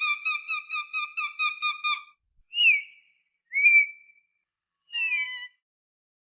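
Falcon calling: a rapid chattering run of about seven pitched notes a second for the first two seconds, then three separate single calls, two of them sliding down in pitch.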